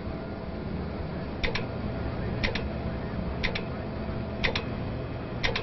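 A countdown clock or timer ticking: a quick double tick once a second, starting about a second and a half in, over a steady low hum.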